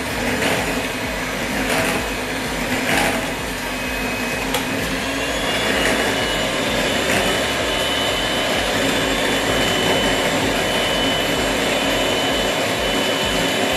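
Electric hand mixer running steadily, its beaters whipping cream in a glass bowl until it thickens. A few light clinks sound in the first few seconds.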